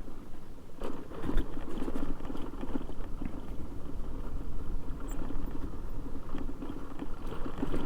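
Motorcycle engine running at low speed, with a steady uneven rumble and a couple of sharp knocks about a second in.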